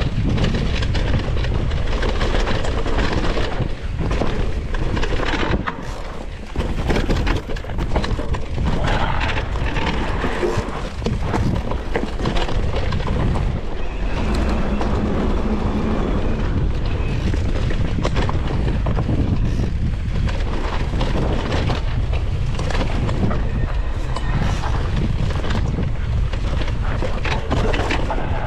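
Electric mountain bike riding a rough forest trail: a constant low rumble of tyres on dirt and roots, with the bike rattling and frequent sharp knocks.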